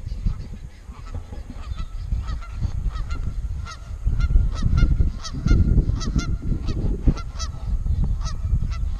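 Geese honking repeatedly, short arched calls several times a second, over a low rumble that grows louder about four seconds in.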